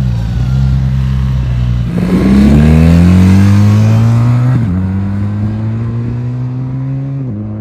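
BMW R 1300 GS boxer-twin engine as the motorcycle pulls away: revs climb, drop at an upshift about halfway through, climb again and drop at a second upshift near the end, the sound fading as the bike rides off.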